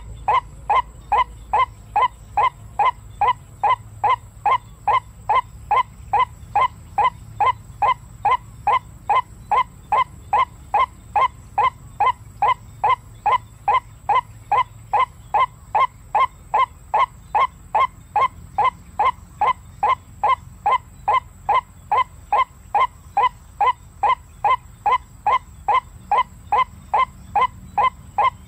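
White-breasted waterhen call, one short clipped note repeated about two and a half times a second, every note alike in pitch and loudness. The unbroken, machine-even repetition is that of a recorded call played on a loop as a trapping lure.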